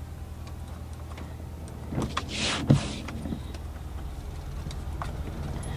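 Pickup truck engine idling, heard from inside the cab as a steady low hum. About two seconds in there is a brief hiss with a sharp click.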